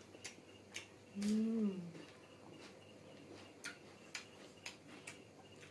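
Close-miked eating sounds: chewing and lip-smacking clicks, scattered irregularly. About a second in comes a short hummed "mmm" that rises and falls in pitch.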